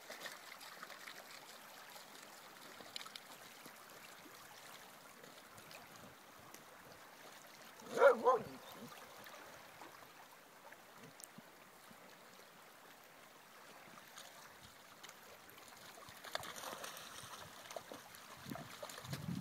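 Faint lapping of small waves on a pebble lakeshore, and about eight seconds in a dog barks twice in quick succession.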